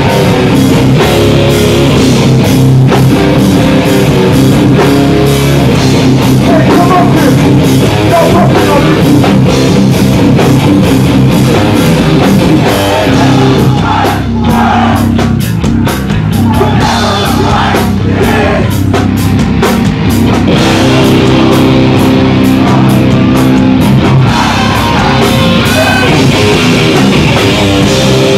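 A heavy rock band playing loud and live, with distorted electric guitars, a pounding drum kit and vocals.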